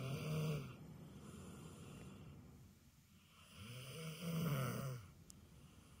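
Sleeping dog snoring: one snore right at the start and a longer one about three and a half seconds in, each a pitched rattle that rises and falls. Softer breathing comes between them.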